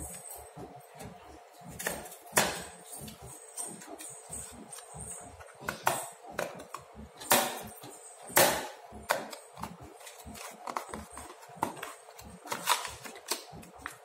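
Paperboard retail box handled and opened by hand: irregular rustling and scraping of card, with a few louder snaps as the flaps are bent back and the inner tray comes out.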